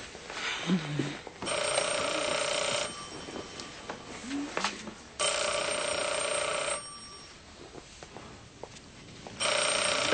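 Office desk telephone ringing three times, each ring about a second and a half long, with the third cut short as it is answered.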